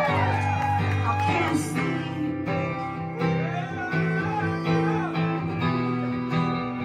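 Live music in an instrumental passage: an acoustic guitar played over steady, repeating low bass notes.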